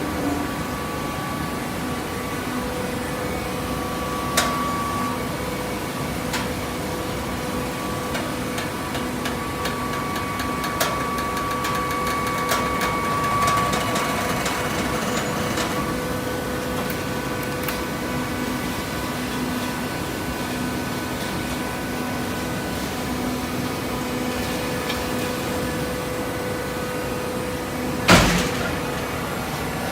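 Automatic hydraulic fiber baler running, its power unit giving a steady hum, with scattered light clicks, a sharp knock about four seconds in and a louder clank near the end.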